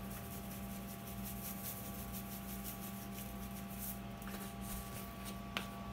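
Hamburger meat beginning to sizzle faintly in a frying pan on an electric stove, a light irregular crackle over a steady low hum, with a single click near the end.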